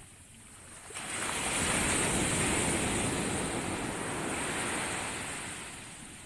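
Surf breaking on a beach: a rush of whitewater that comes in abruptly about a second in, holds for a few seconds and fades away near the end.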